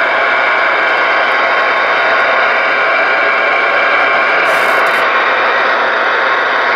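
Steady static hiss from the Galaxy DX-959B CB radio's receiver, sitting on channel 19 with no station coming in.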